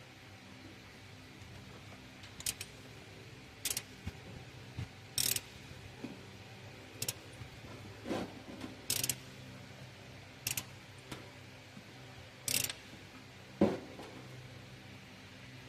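Short clicks and scrapes of hand work on the engine bay as the serpentine drive belt is fitted over the pulleys, about nine at irregular intervals over a low steady hum.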